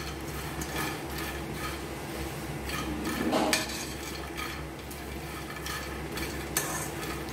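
Metal spatula stirring dry makhana (fox nuts) in a metal frying pan with no ghee or oil: repeated scraping and light clattering, the loudest stroke a little past three seconds in.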